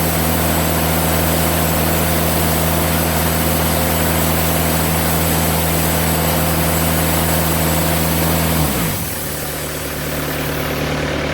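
Engine-driven band sawmill running steadily through a cut in red oak, engine hum under the hiss of the band blade. About nine seconds in the engine note shifts down and the cutting noise eases as the cut finishes, leaving the engine running.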